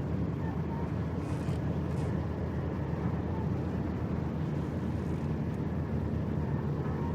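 Steady low rumble of a ship under way as it comes into port.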